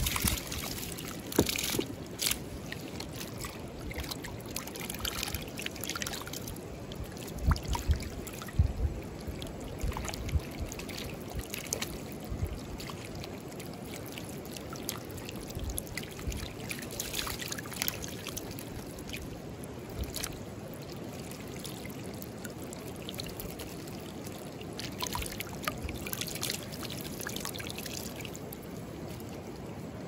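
Shallow creek water running steadily, with scattered splashes and sloshing as a landing net full of small fish is dipped and moved in the water.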